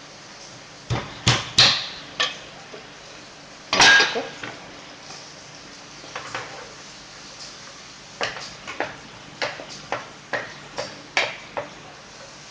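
Kitchen utensils knocking and clattering: a few sharp knocks in the first four seconds, the loudest about four seconds in. Then comes a run of lighter taps, about two a second, as a wooden spatula stirs spice paste in a frying pan.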